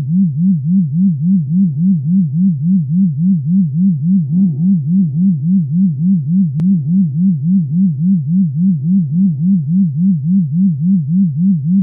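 A low electronic tone warbling up and down steadily, about three to four times a second, pulsing in loudness with each wobble. There is a faint click about halfway through.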